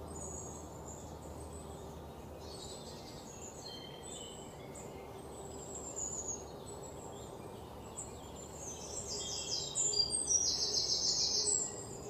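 Small birds chirping and calling in a mix of short high notes and whistles, with a louder, rapid trill of repeated notes near the end.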